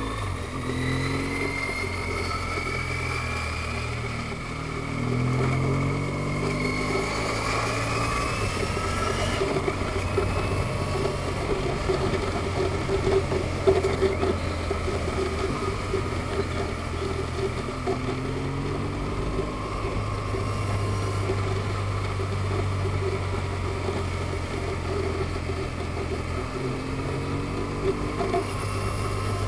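Vehicle engine running under way, with road and wind noise. Its pitch climbs over the first nine seconds or so, then drops, as it accelerates and shifts gear, and it runs steadily after that.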